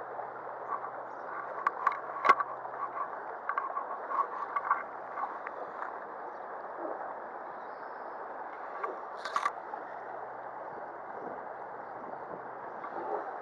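Shallow gravel-bed river flowing, a steady rush of water. Scattered small clicks and knocks sound between about two and five seconds in, with a short sharper rattle near nine seconds.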